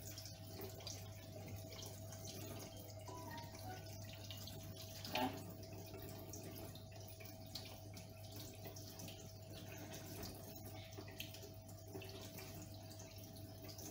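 Kitchen tap running in a thin stream onto pieces of conger eel on a perforated plastic mat in a stainless steel sink as they are rinsed; faint and steady, with one brief louder sound about five seconds in.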